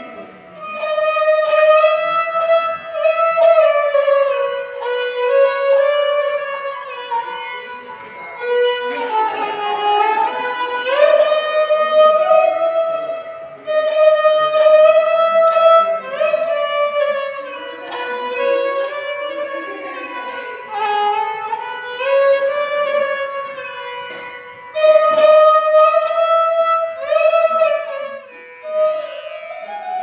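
Esraj played with a bow: a slow solo melody in phrases of a few seconds, with notes that slide smoothly from pitch to pitch.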